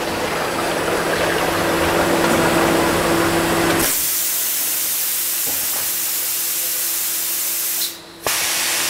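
Vertical form-fill-seal packaging machine running while bagging oil: a steady hum under a rushing noise, which changes abruptly to a bright hiss about four seconds in and drops out briefly near the end.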